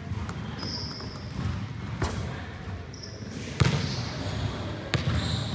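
Basketball bouncing on an indoor gym court, three sharp bounces echoing in the hall, with short high squeaks of sneakers on the court in between.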